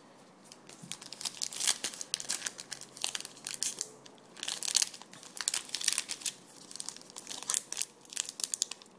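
A wrapper on a pack of 2009 Absolute Memorabilia football trading cards is torn open and crinkled by hand. There are irregular bursts of crackling from about a second in until shortly before the end.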